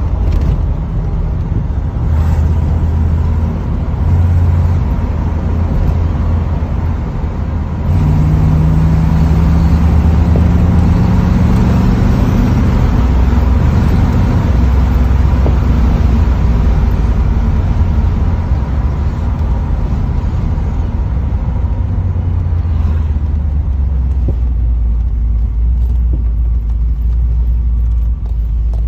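Classic Chevrolet Corvette V8 rumbling while driving, heard from inside the cabin. About eight seconds in it gets louder and rises in pitch as the car accelerates, then settles into a steady cruise.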